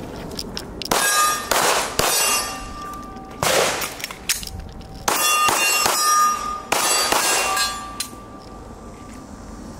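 Several pistol shots at uneven spacing, each followed by a steel target ringing with a clear tone. There is a pause of about two seconds after the first two shots, fitting a slide-lock reload in a one-round, reload, five-round drill.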